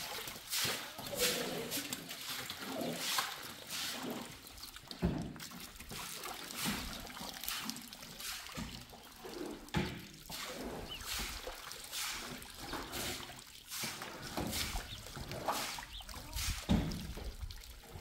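Straw broom swishing repeatedly over a wet concrete floor, pushing standing water, with water running from a garden hose and splashing.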